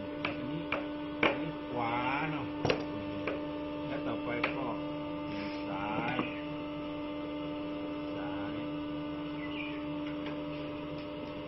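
Hydraulic shoe-sole cutting press with its pump motor running, a steady pitched hum, while the steel cutting die and swinging press head are handled, giving several sharp clacks in the first half.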